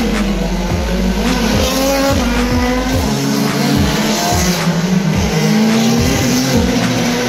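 IndyCar race cars' twin-turbo V6 engines running at speed as several cars pass, their pitch rising and falling and overlapping.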